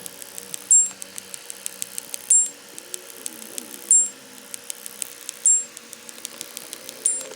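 Sped-up electronic sound effects: a short, high-pitched beep repeating about every one and a half seconds, five times, over a fast, irregular patter of ticks.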